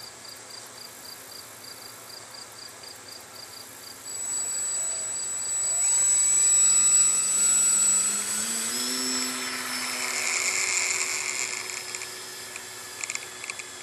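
Electric motor and propeller of a Dynam Tiger Moth RC biplane powering up about four seconds in for takeoff: a loud, high whine that climbs in pitch as the throttle opens, then holds steady as the plane climbs away.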